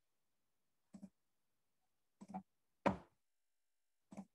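Four short, sharp clicks of a computer mouse at uneven intervals; the third, about three seconds in, is the loudest.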